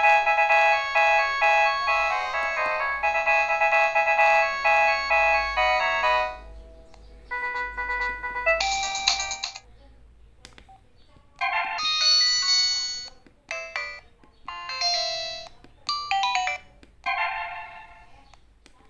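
Modottel WTE-300 mobile phone playing its 16-voice polyphonic MIDI tones through its small speaker: a continuous ringtone melody that stops about six seconds in, followed by a series of short separate jingles with brief pauses between them.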